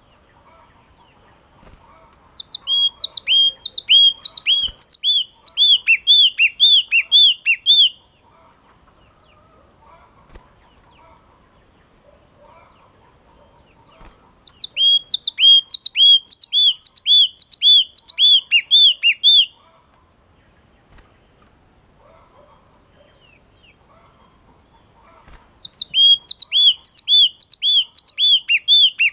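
Caged yellow-cheeked tit (chi chi mào) singing: three bouts of fast, loud repeated two-note phrases, each a high note dropping to a lower one, a few seconds apart. The last bout runs on past the end.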